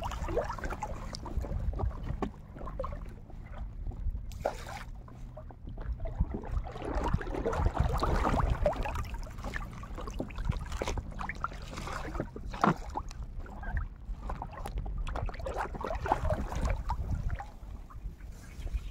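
Water sloshing and splashing around a small raft being moved through shallow water, with scattered knocks, one sharper than the rest about two-thirds of the way through.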